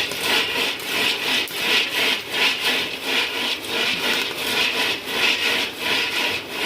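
Rhythmic dry scraping, about two or three strokes a second.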